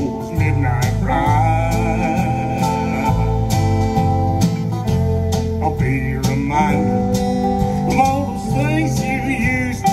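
Country band playing live through a PA: drums, bass, electric and acoustic guitars and a steel guitar, in a steady beat.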